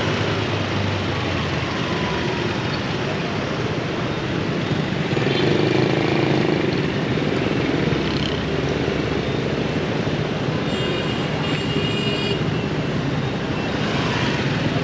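City traffic heard from a moving motorbike: a steady wash of engine and road noise. A high-pitched tone sounds for under two seconds about eleven seconds in.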